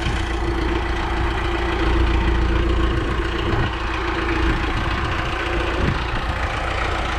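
Tractor engine idling steadily with a low, even rumble and a constant hum.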